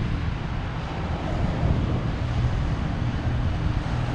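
Steady low rumble of wind buffeting the microphone, with a faint engine drone underneath.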